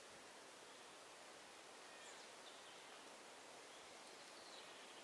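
Near silence: faint steady outdoor background hiss, with a couple of faint short high chirps about two seconds in and near the end.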